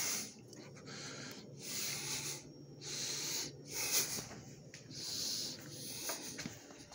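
A man breathing heavily close to the microphone, about six breaths roughly a second apart, out of breath.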